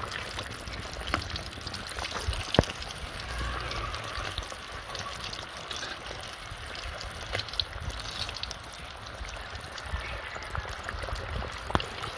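Vermicelli-coated potato patties frying in hot oil in a kadhai: a steady sizzle with scattered pops and crackles, a few of them sharper. The patties are browning, near done.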